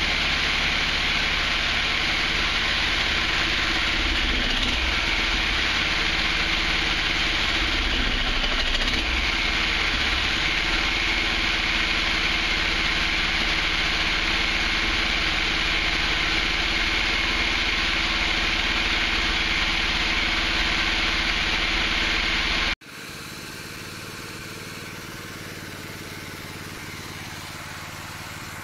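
Honda GX390 single-cylinder engine running steadily at speed on the bench, driving a belt-driven 3D-printed two-stage regenerative supercharger, with a steady airy hiss over the engine note; the engine runs smoothly after a fuel-feed fix. About three-quarters of the way through, the sound drops abruptly to a quieter steady run.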